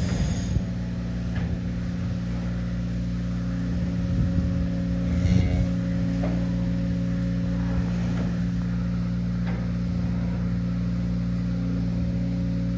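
A steady low mechanical hum, with a few faint brief knocks and rustles over it.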